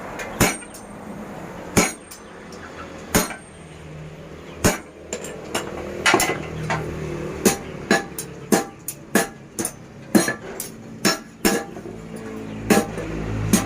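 Blacksmith's hammer blows ringing on metal. Single strikes come a second or more apart at first, then quicker, about two a second, from midway on, over a low steady hum.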